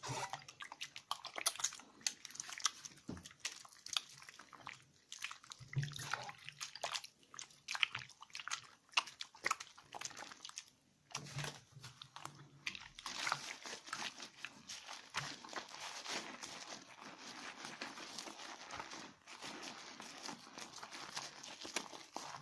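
Bar of NMZhK whitening 72% laundry soap being lathered in the hands: many short sticky clicks and smacks, turning into steadier wet rubbing from about halfway through.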